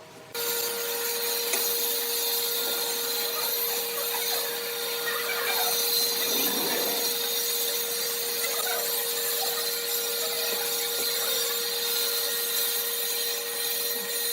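A woodworking power tool switches on just after the start and runs steadily on wood, with a constant motor whine over a hissing cutting noise.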